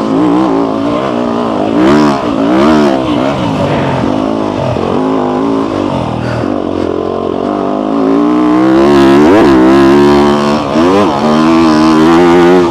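Dirt bike engine revving up and down as the rider works the throttle and shifts through the gears, with wind rushing past the onboard camera. The pitch climbs and falls repeatedly, with the sharpest rises and drops near the end.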